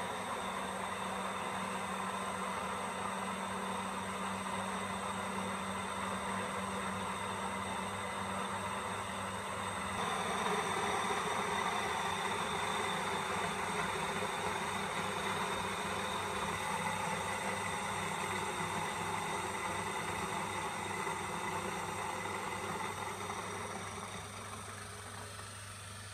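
Electric motor of a mini flour mill running steadily while its grinding head mills grain into powder: a continuous hum under the noise of grinding. The sound grows louder about ten seconds in and eases off near the end.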